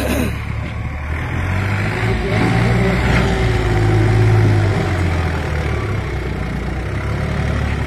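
Preet 955 tractor's diesel engine labouring as it pulls a heavy trolley up over mounds of loose earth, front wheels lifting under the load. The engine grows louder from about two seconds in, peaks around four seconds, then eases back.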